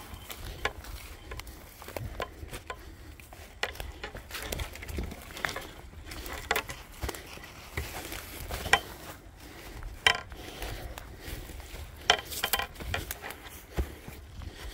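Footsteps of a person in boots walking through dry grass and fallen leaves, the dry litter crunching and crackling irregularly underfoot. A few louder crackles come near the middle and toward the end.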